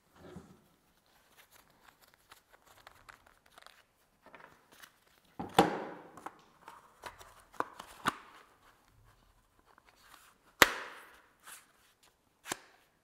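Plastic clicks and knocks of a fischer FIS V 360 Plus mortar cartridge being handled and fitted into a FIS DMS manual dispenser gun, with two sharper knocks, one about five and a half seconds in and one about ten and a half seconds in, and a few lighter clicks between.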